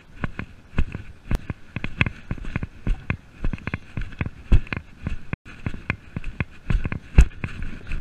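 A horse cantering on grass, picked up by a camera strapped to the rider's chest: a quick, uneven run of hoofbeats mixed with sharp clicks and rattles from the saddle and bridle.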